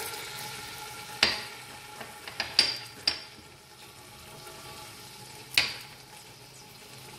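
Chopped garlic, cumin and fenugreek seeds frying gently in olive oil on low flame: a soft, steady sizzle broken by a few sharp clicks.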